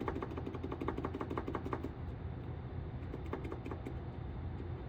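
Ratchet wrench clicking in quick runs of about eight to ten clicks a second, stopping and starting, over a steady low hum.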